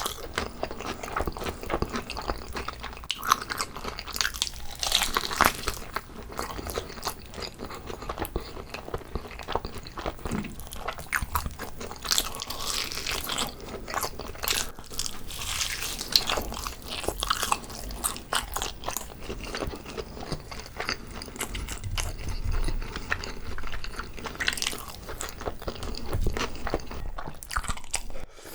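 A person biting and chewing food close to the microphone, with many irregular crunchy, wet clicks throughout.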